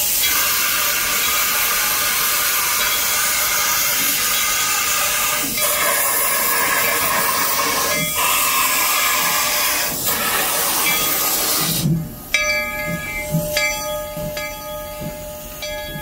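Denver & Rio Grande C-19 steam locomotive venting steam: a loud, steady hiss that cuts off suddenly about twelve seconds in. Quieter background music follows.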